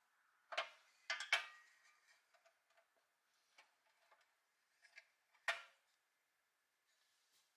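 Light metal clicks and knocks of a pressed-steel Tonka toy dump bed being handled and set onto the truck's steel chassis frame: a sharp knock about half a second in, a quick cluster just after a second, faint taps between, and the loudest knock about five and a half seconds in.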